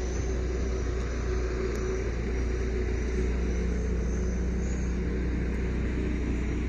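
Steady low rumble of a running vehicle, with a faint even hum over it.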